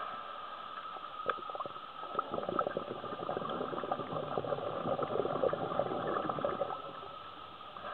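Bubbling crackle of a scuba diver's exhaled regulator bubbles, heard underwater through the camera housing, rising about two seconds in and fading near the end, over a steady hum.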